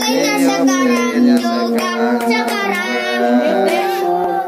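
A child singing a birthday song with musical accompaniment, in steady held notes.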